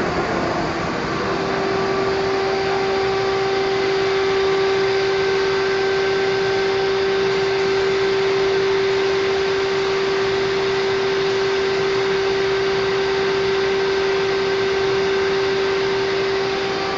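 Spray-painting rig running steadily with a strong, even whine under the hiss of compressed air from a spray gun spraying clearcoat. The gun wears a freshly swapped air cap, being tried for finer atomization.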